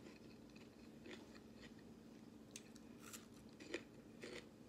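Faint crunching of raw green bell pepper being bitten and chewed, a few crisp crackles at irregular moments, the strongest near the end.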